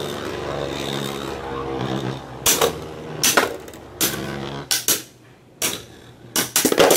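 Spryzen and Kerbeus Beyblade Burst tops spinning against each other in a plastic Beystadium: a steady whirring hum for the first couple of seconds, then a string of about seven sharp clacks as the tops collide.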